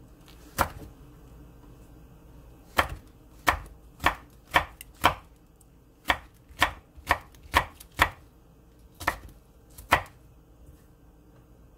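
Kitchen knife slicing a red chili pepper on a wooden cutting board: about a dozen sharp knocks of the blade on the wood, mostly about half a second apart, with a pause after the first and the cuts stopping about ten seconds in.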